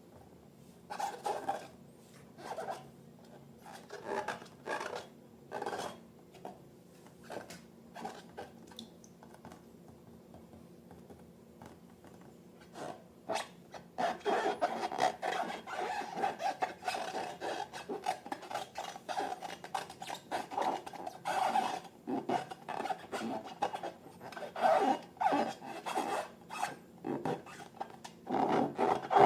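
Rubbing and scraping from slime-making with balloons and tools. Separate strokes are spaced out at first, and from about halfway through they become dense, continuous rubbing.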